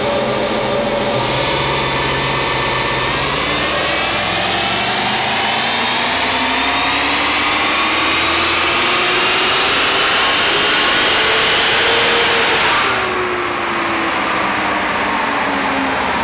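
2016 Ford Mustang GT's 5.0-litre V8 making a full-throttle run on a chassis dynamometer, its rear tyre driving the roller: the pitch rises steadily as the engine pulls up through the revs. About twelve and a half seconds in it comes off the throttle, the level drops, and the pitch falls as engine and roller run down.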